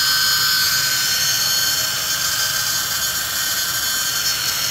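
Electric heat gun running on its low setting: a steady rush of blown air with a thin, steady whine from its fan motor.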